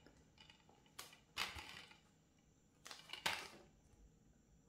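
Plastic Blu-ray case being handled and opened, with faint clicks and rustling of the plastic. There are two short bursts, one about a second in and another about three seconds in.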